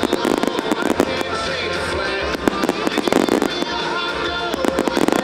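Fireworks going off in rapid crackles and pops, with music playing underneath.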